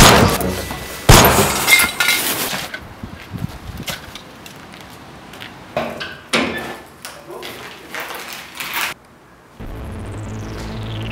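Two loud gunshot sound effects about a second apart, the second trailing off in a long noisy tail. Scattered knocks and clicks follow. Near the end a steady low hum starts under a whistle that falls in pitch.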